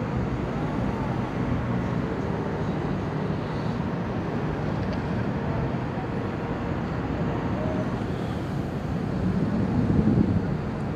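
Steady outdoor city ambience, mostly a low rumble of road traffic, with no single event standing out.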